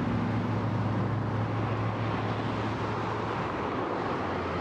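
Street traffic noise, with a vehicle engine's steady low hum over the road noise. The hum eases off a little about two seconds in.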